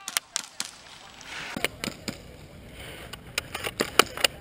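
A string of irregular sharp clicks and knocks, about a dozen in a few seconds. A faint high whine joins about one and a half seconds in.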